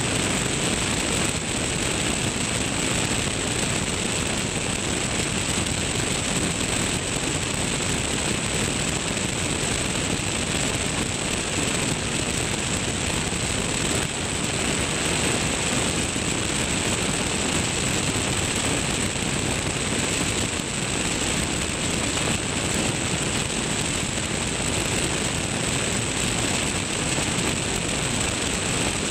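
Steady in-flight noise of a Tecnam P2002 Sierra light aircraft: wind rushing over a camera mounted under the wing, mixed with the engine and propeller running at a constant cruise setting. A thin high whine sits over it.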